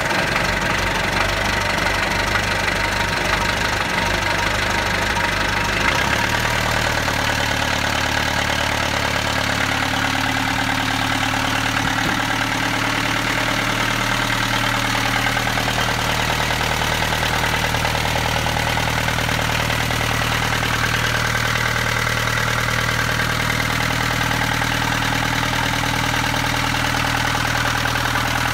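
Four-cylinder inboard marine diesel engine running steadily at idle. Its note shifts slightly about six seconds in.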